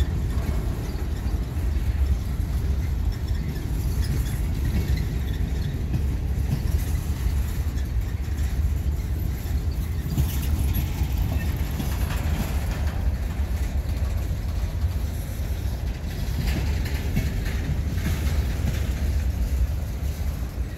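Norfolk Southern manifest freight train rolling by, a steady low rumble.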